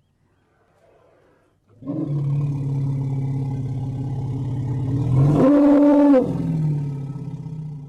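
Elephant calling: a long, low roar that steps up into a higher, louder blast about five seconds in, then drops back down and fades.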